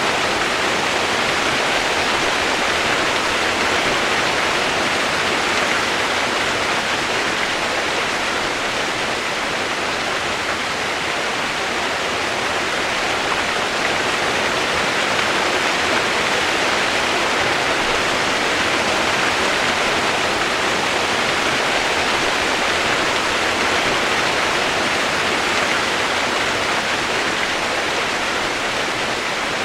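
Rushing water, a steady even hiss with no changes or distinct events.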